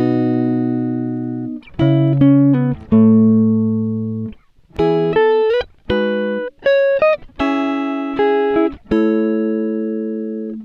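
Background music: a clean guitar picking single notes and chords that ring out and fade.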